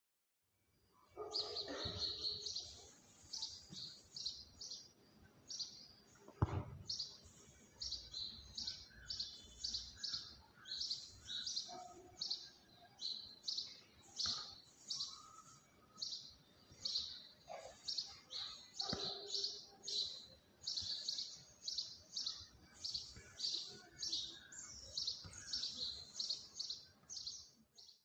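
A small bird chirping over and over in short, high notes, about two a second, with a single sharp knock about six seconds in.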